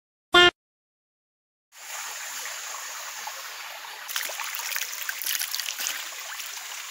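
Shallow stream flowing and trickling over rocks and sandbags, a steady rushing splash that starts about two seconds in and grows busier and more splashy from about four seconds.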